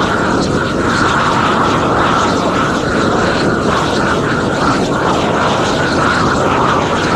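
Propane weed-burner torch running with a large open flame: a loud, steady rushing roar of burning gas from the nozzle.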